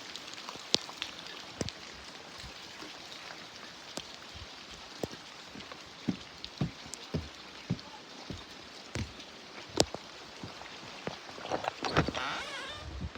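Heavy rain falling steadily, with scattered sharp taps of drops striking close by.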